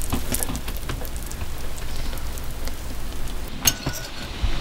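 Thick, wet sourdough starter sliding out of a glass measuring bowl into a stainless steel mixing bowl as it is scraped out with a metal utensil: a steady crackly, squelching noise with small clinks of metal on glass, and one sharper clink about three-quarters of the way through.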